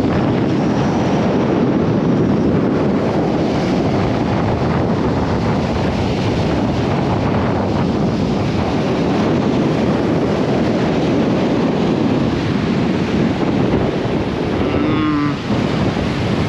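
Wind buffeting the microphone over surf on the beach: a steady, loud rush that dips briefly near the end.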